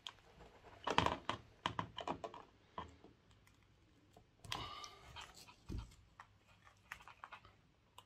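Scattered light clicks and taps of hand tools being handled: steel pliers and a multimeter's plastic test probes, with a short scrape and a soft thump midway and the probe tips clicking onto the metal track rails near the end.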